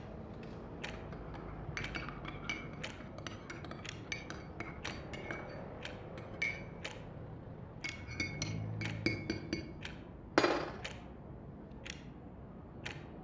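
Crockery being handled: a quick run of light china clinks and taps, several ringing briefly on the same note, then one much louder knock or clatter about ten seconds in.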